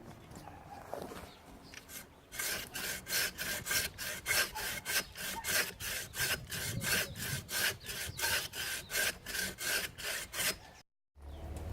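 Handsaw cutting through a beefwood tree trunk in quick, regular push-pull strokes, about three a second. The strokes start a couple of seconds in and stop abruptly near the end.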